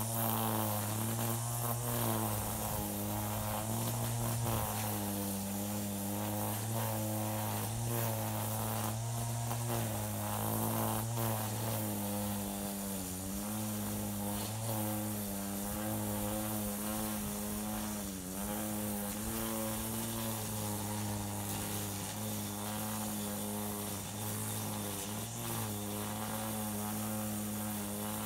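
String trimmer engine running steadily, its pitch wavering and dipping briefly now and then as it cuts grass.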